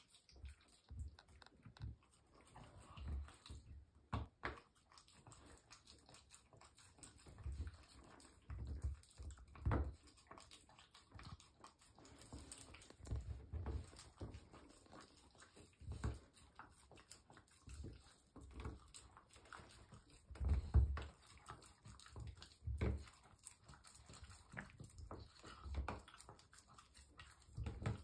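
Dog licking food off a lick mat: quick, irregular wet licks and smacks, with soft low thumps here and there.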